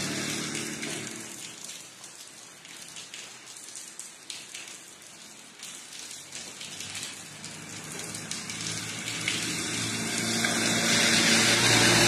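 Steady rain with scattered drips. A vehicle on the wet road fades away in the first couple of seconds, and another swells louder toward the end.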